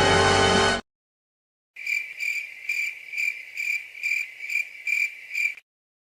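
Cricket chirping sound effect: an even run of short high chirps, about two to three a second, for a few seconds. Before it, a snatch of music cuts off suddenly under a second in.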